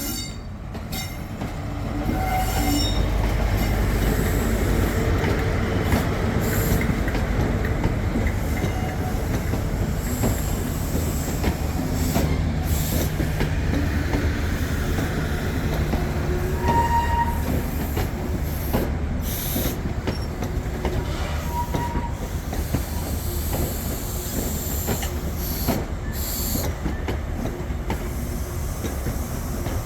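A train rolling past on the rails: a steady low rumble with wheel clatter over the rail joints, and two brief wheel squeals past the middle.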